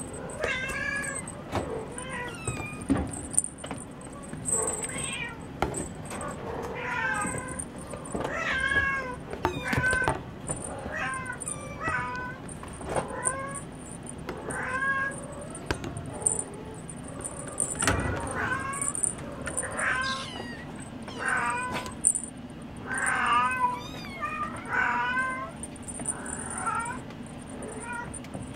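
Munchkin kittens mewing over and over, short high calls about once a second, with occasional light knocks.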